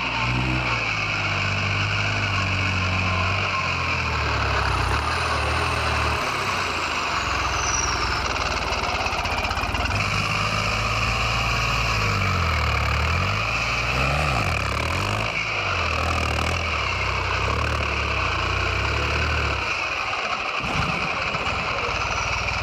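Bulldozer's diesel engine running under load, its speed dipping and climbing back several times as the machine works.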